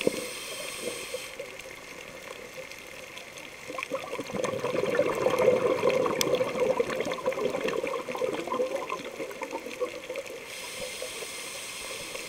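Underwater sound of a diver's exhaled air bubbling out, heard through the camera's housing: a steady hiss, then about four seconds in a louder gush of bubbles that swells and fades away a few seconds later.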